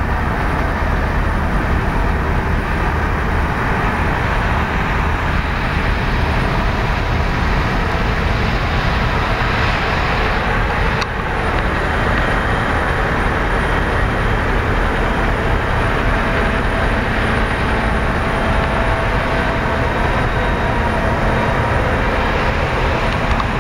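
Combine harvester running steadily, a loud continuous machine noise with faint steady tones in it and a single click about halfway through.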